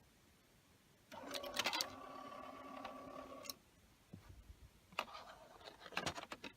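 The Hitachi Lo-D DAD-800 CD player's mechanism motor whirs for about two and a half seconds with clicks, followed later by a few sharp mechanical clicks.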